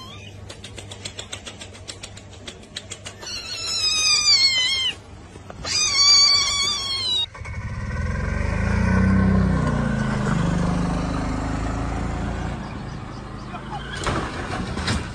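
Two stretches of high-pitched, wavering screeches over fast ticking, then from about halfway a golf-course utility vehicle's engine running steadily with a low rumble as it drives.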